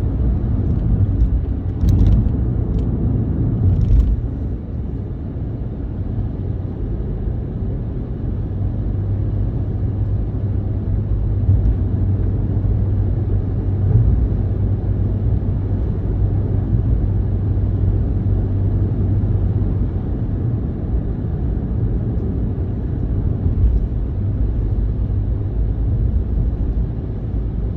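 Steady low rumble of a moving vehicle, with a few faint clicks in the first few seconds.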